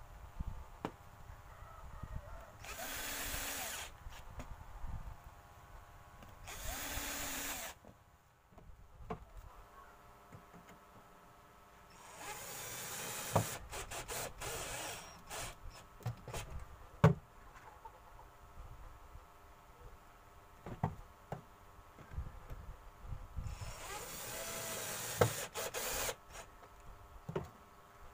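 Cordless drill/driver running in four short bursts of about one to three seconds as it drives screws fixing a concealed cabinet hinge into plywood. Sharp clicks and knocks of handling the hinge, screws and drill come between the bursts.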